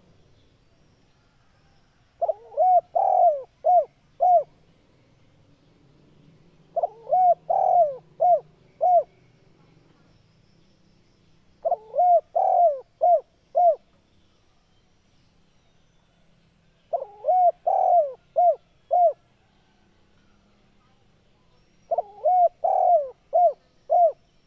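Male spotted dove (tekukur) cooing: five phrases about every five seconds, each a quick run of five or six short coos.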